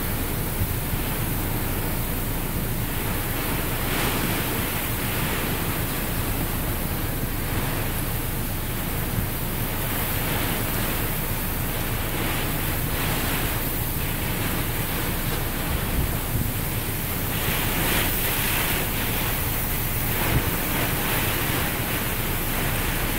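Hurricane-force wind and heavy rain blowing hard without a break, surging in gusts every few seconds, with wind buffeting the microphone.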